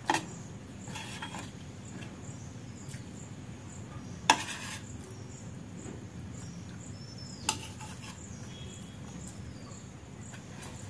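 Metal spoon clinking against a plate three times, the loudest about four seconds in, over a steady low background hum. Faint, evenly spaced high ticks run throughout.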